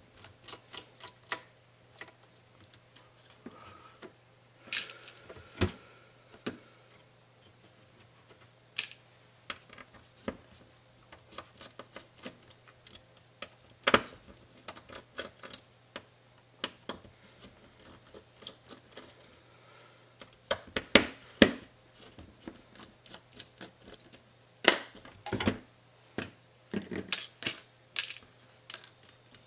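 Irregular clicks, taps and short scrapes of hands working a laptop's plastic display lid apart: hinges and parts lifted and set down, a thin cable pulled from its routing. A faint steady hum runs underneath.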